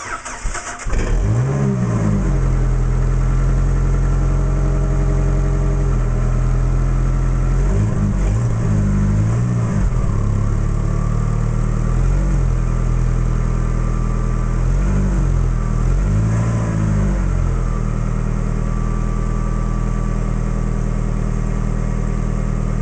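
2005 Jeep Wrangler TJ exhaust on a cold start at 3°F after sitting all weekend: a brief crank and catch, then the engine idles steadily and loudly, its pitch wavering a few times.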